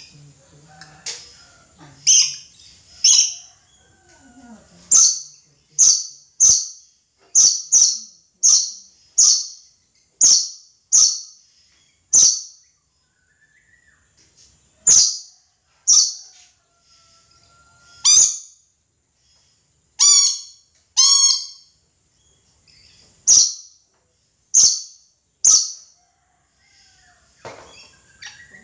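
Red lory (Eos bornea) calling: short, loud, high-pitched calls repeated about once a second with a few short pauses. About two-thirds through come two longer, harsher calls.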